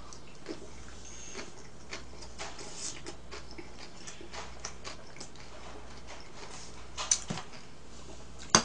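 Quiet eating sounds: scattered faint clicks and smacks of chewing and metal chopsticks on bowls, with a couple of louder clicks near the end.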